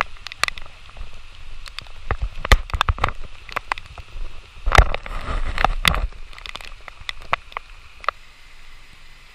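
A clear plastic rain poncho crinkling and rubbing against the camera's microphone in the rain, in a dense run of irregular sharp crackles and thumps. It is busiest in the middle and thins out near the end.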